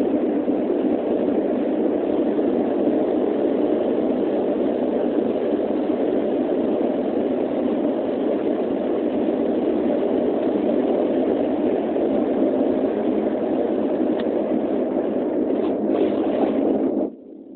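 Dash 8 turboprop engines and propellers heard from inside the passenger cabin, a loud steady drone with no change in pitch. The sound cuts out abruptly near the end.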